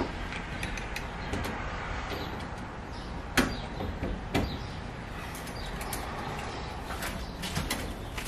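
Scattered clicks and knocks from a school bus's metal front entry door being handled and swung, the loudest about three and a half seconds in and another a second later.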